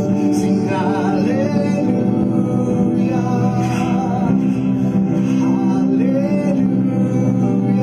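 A man singing a slow worship song over held, sustained accompaniment chords.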